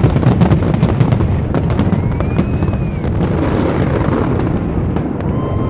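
Fireworks going off in a rapid barrage: many sharp pops and crackles over a continuous low rumble of bursts, thinning out after about halfway.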